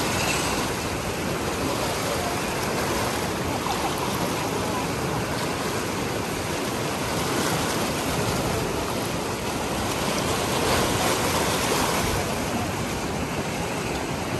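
Receding floodwater flowing with a steady rushing noise.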